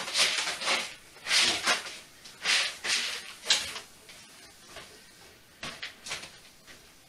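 A quick run of short knocks and scrapes from handling things at the stove, then quieter scraping of a utensil through chicken and vegetables in a frying pan, with a few strokes just before the end.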